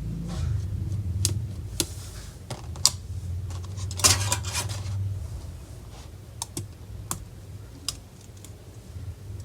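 Light, irregular clicks and taps of small tools and parts on an open laptop's internals, with a quick cluster of clicks about four seconds in, over a steady low hum.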